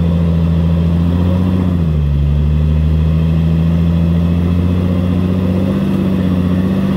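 Jeep Wrangler LJ rock crawler's engine running at steady revs on a steep rock climb, its pitch dipping slightly about two seconds in.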